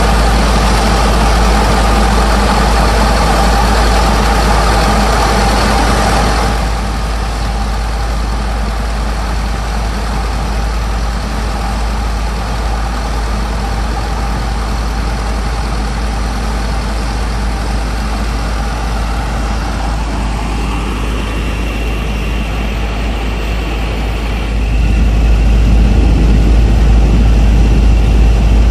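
Engines of sand-pumping barges running steadily with a constant low rumble. The sound drops abruptly about a quarter of the way in and comes back louder near the end.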